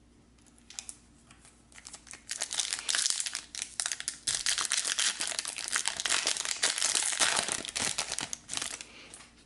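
Foil trading-card pack wrapper crinkling as it is torn open by hand and the cards are pulled out. A few crackles come first, then dense crinkling from about two seconds in until just before the end.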